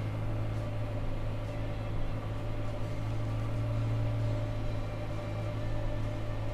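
Massey Ferguson MF6713's 132-horsepower four-cylinder diesel engine running with a steady low drone as the tractor drives along, heard from inside the cab.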